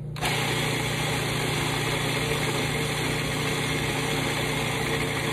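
An old Cuisinart food processor switches on just after the start and runs steadily, its motor humming and the blade whirring as it purées garlic and olive oil into a paste.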